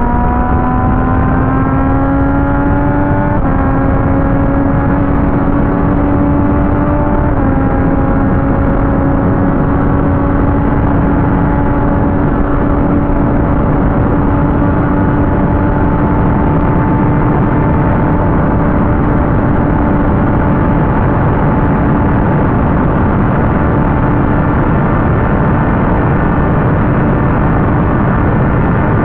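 Sport motorcycle engine under way, pitch climbing as it accelerates, with two small drops in pitch at shifts about three and seven seconds in, then holding a steady cruise. Heavy wind rush runs underneath throughout.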